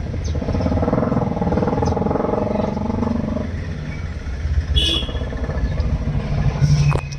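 A motor vehicle engine running, swelling and then fading over the first few seconds over a steady low rumble, with a short high chirp about five seconds in.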